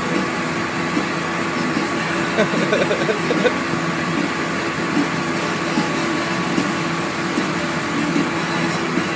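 Heavy machinery at an oilfield well site running in a steady drone with a constant low hum. Faint voices come in briefly about two and a half seconds in.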